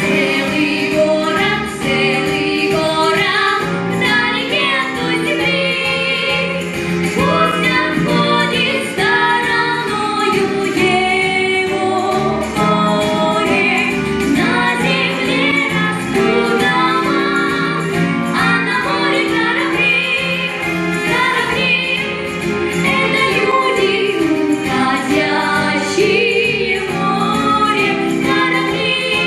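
A girl and a boy singing a duet into microphones over instrumental accompaniment, both voices amplified through the hall's sound system.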